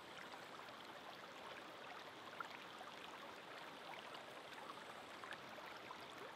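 Faint running water of a stream: a steady, even rush with many small bubbling plinks scattered through it.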